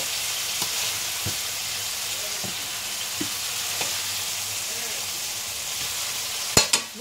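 Chicken frying, a steady sizzle with a few faint knocks, and two sharp clicks near the end.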